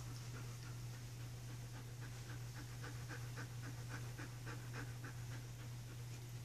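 Young black wolfdog panting quickly and evenly, faint, over a steady low hum; the panting stops about five seconds in.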